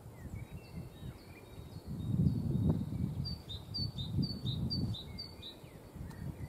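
Songbirds singing: scattered chirps, then one bird repeating a two-note phrase, high then lower, five times in quick succession from about three seconds in. Under it, an uneven low rumble of wind on the microphone, strongest about two to three seconds in.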